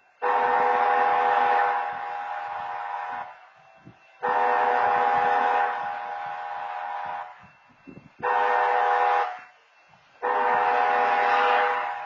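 BNSF diesel locomotive's air horn sounding the grade-crossing warning: two long blasts, a short one, then a long one, each a chord of several steady tones. It signals a train approaching the crossing.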